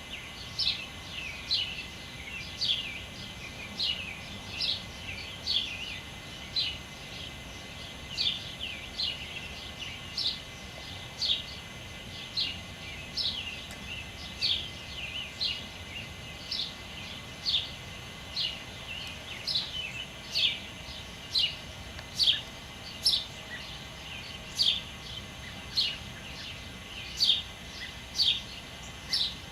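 A songbird calling over and over, short falling chirps about one and a half a second, steady and unbroken, over a faint outdoor background.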